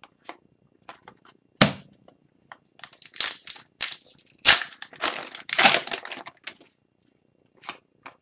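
Foil wrapper of an Upper Deck hockey card pack being torn open and crinkled: a dense crackling stretch of a few seconds from about three seconds in. Before it, soft clicks of cards being handled and one sharp tap about a second and a half in.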